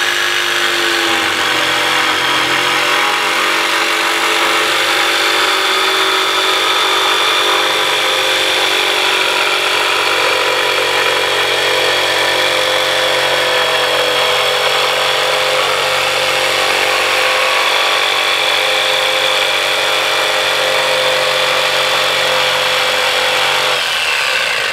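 DeWalt jigsaw running steadily, its blade cutting through a wooden plank. The motor winds down near the end as the saw is switched off.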